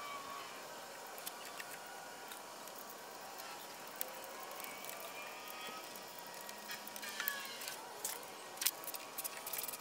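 Faint small clicks and taps of a turbo diverter valve being refitted by hand in a car's engine bay, over a steady low hiss, with a cluster of sharper clicks near the end.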